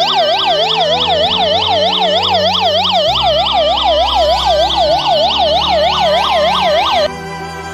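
Built-in SOS alarm of a hand-crank solar emergency radio sounding: a loud electronic siren warbling up and down about four times a second, cutting off suddenly near the end.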